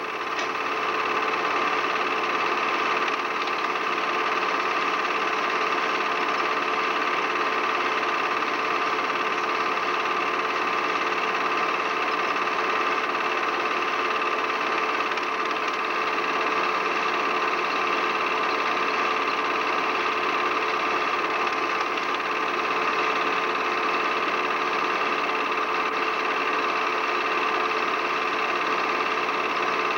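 Home-movie film projector running, a steady mechanical whirr that holds the same pitch throughout.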